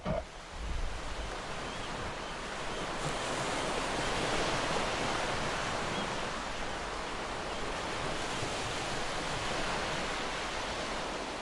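Sea water rushing in a steady, even hiss that builds over the first few seconds, with a few low bumps at the start.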